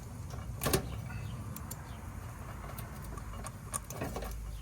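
A sharp click and a few lighter ticks of handling an old HVAC run capacitor and its wire terminals, over a steady low hum.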